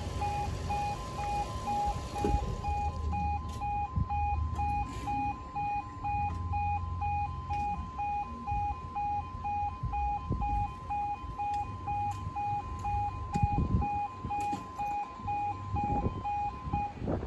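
Level crossing yodel alarm sounding as a rapid pulsing two-tone warble while the barriers lower. It cuts off suddenly near the end, as the barriers finish coming down.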